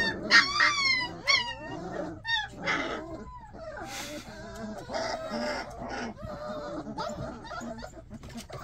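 Young puppies, three to four weeks old, yelping and whimpering: a quick run of high calls, each falling in pitch, in the first second and a half, then quieter whines.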